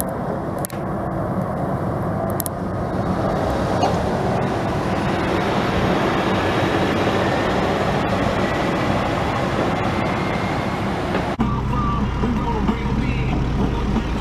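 Motor vehicle and road noise: a broad rushing sound over a low engine hum. About eleven seconds in it changes abruptly to a steadier, lower hum.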